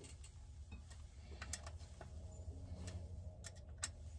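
Faint, scattered light clicks of a hand tool and small metal parts while a chainsaw is being assembled by hand, about five clicks over a low steady hum.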